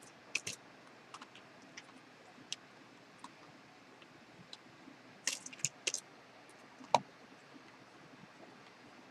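Scattered small clicks and taps of plastic controller parts and screws being handled, with a cluster of clicks about five seconds in and one sharper knock about seven seconds in.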